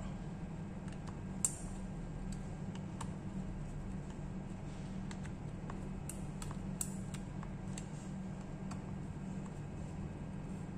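Small screwdriver working the laptop's heatsink screws in crisscross order: scattered light clicks and ticks, with a sharper click about one and a half seconds in and a few more around five to seven seconds, over a steady low hum.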